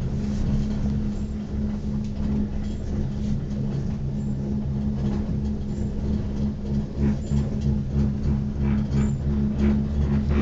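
Steady low hum inside a moving cable car cabin as it rides the haul cable, with a few light rattles about two-thirds of the way through.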